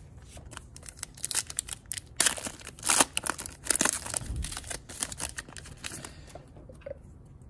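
Foil wrapper of a Panini Absolute Memorabilia basketball card pack being torn open and crinkled by hand: a run of sharp crackling and tearing rustles, loudest two to four seconds in.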